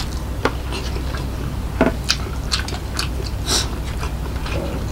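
Close-miked eating sounds of a person chewing a mouthful of rice and soy-sauce egg: wet mouth smacks and clicks at an irregular pace, over a steady low hum.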